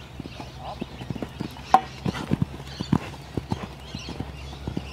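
Hoofbeats of a ridden horse on a sand arena: a run of dull, irregular thuds, with one sharper, louder strike about a second and three-quarters in.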